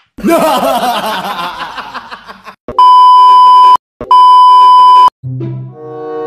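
Editing sound effects between clips: a wavering sting that fades out over about two seconds, then two loud, steady beeps of a test-pattern tone, each about a second long with a short break between. Music starts near the end.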